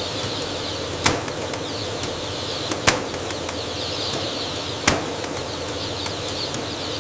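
A crowd of newly hatched chicks peeping over a steady hiss, with three sharp mechanical clacks about two seconds apart.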